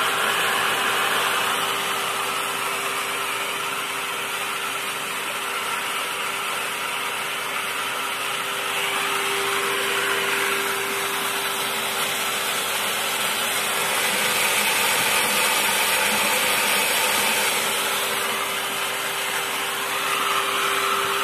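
Electric water pump running steadily with a constant hum and hiss, kept on by its electronic pressure controller while the outlet tap is open.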